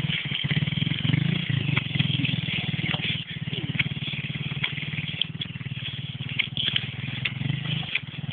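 Motorcycle engine running steadily as the bike rides up a muddy dirt track, with scattered clicks and rattles.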